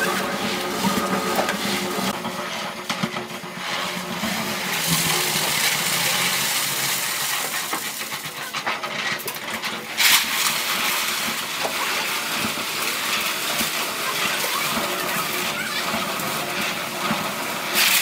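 Electric drum concrete mixer running, with concrete and gravel churning and rattling in the turning drum over a steady motor hum. A short, louder clatter about ten seconds in.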